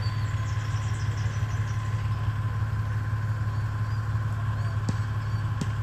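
Steady low engine hum, like a vehicle idling, running evenly without rising or falling.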